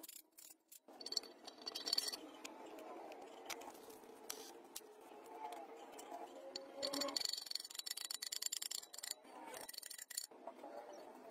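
Hand tools working on cast-iron engine parts: quick clicks of a socket ratchet on a bolt, then harsh metal scraping and brushing with a hand wire brush, with knocks and clicks throughout.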